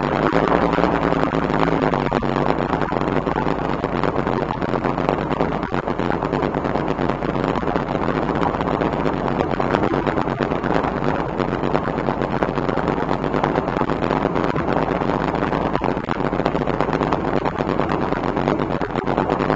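Shelby Cobra V8 engine running steadily at low speed near idle.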